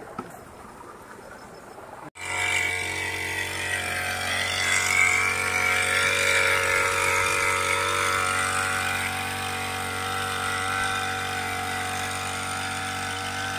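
Small two-stroke engine of a backpack power sprayer running steadily while spraying. It cuts in abruptly about two seconds in, after a quieter stretch of outdoor ambience.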